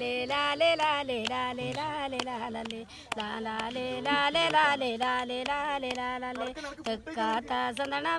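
An older woman singing a folk song unaccompanied, in long held notes that slide from one pitch to the next.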